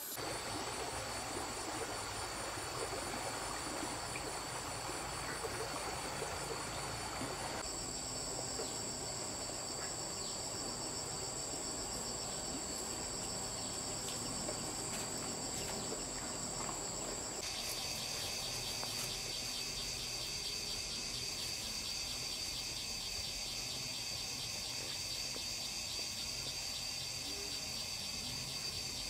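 Steady chorus of insects trilling at a high pitch. The mix of trills changes abruptly twice.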